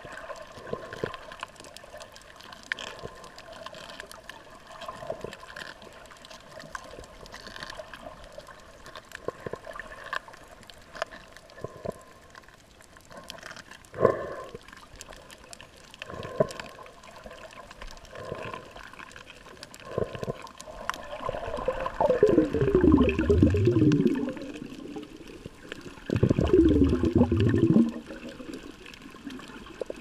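Underwater ambience while snorkeling: a faint steady hum with scattered sharp clicks, then twice near the end a loud gurgling swell of bubbles, each about two seconds long and falling in pitch.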